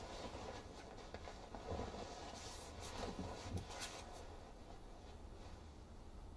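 Sheets of paper rustling softly as they are picked up off a bed and handled, with a few crisp strokes about two to four seconds in.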